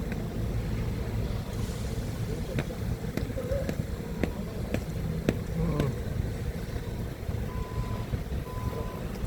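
Forklift engine running steadily, with several sharp clicks and knocks in the middle. Near the end its reversing alarm starts beeping, a steady single-pitched beep about once every second.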